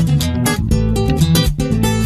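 Background music: a fast, rhythmic strummed acoustic guitar.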